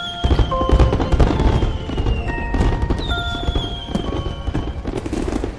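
Fireworks going off, low booms and crackling, under soundtrack music with held notes and a slowly falling high tone.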